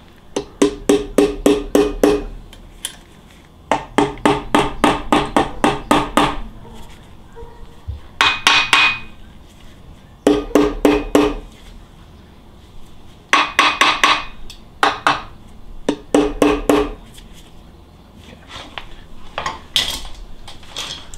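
Runs of rapid hammer blows, about six to eight a second, on a stuck Porsche 912 engine part to knock it loose. The part rings with a steady tone under most runs.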